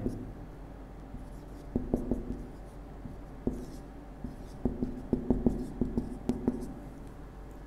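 Marker pen writing on a whiteboard: short scratchy strokes in small clusters, the busiest run from about four and a half to six and a half seconds in.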